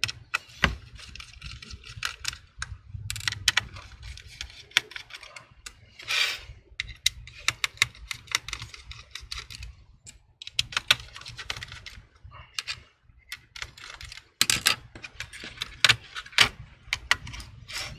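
Irregular clicks and taps, with some light scraping, of a laptop heatsink and motherboard being handled on a tabletop as the heatsink is worked loose and lifted off by its heat pipe.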